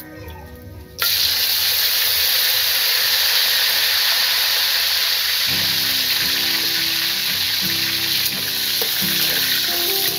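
Hot oil in an iron wok sizzling loudly as seasoning pieces are dropped in, starting suddenly about a second in and holding as a steady hiss.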